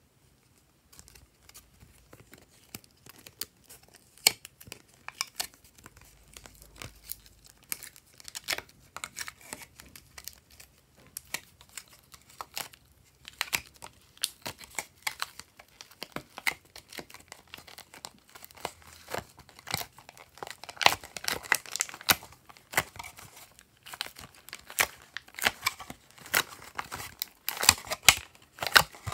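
Thin clear plastic blister tray crinkling and crackling as soft modeling-clay blocks are pushed and pulled out of its cells: many sharp snaps and crackles, sparse at first and growing busier and louder in the second half.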